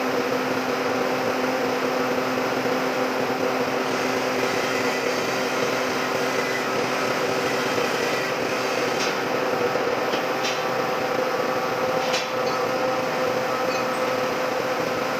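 Metalworking machinery running steadily, a constant hum with a few short metallic ticks in the second half.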